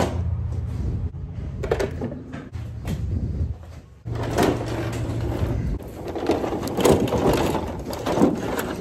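Beta tool trolley's trays and the loose tools in them rattling and knocking over the low drone of a moving vehicle: the unlocked trays shaking and sliding open in transit. Near the end the trolley rattles as it is wheeled over grass.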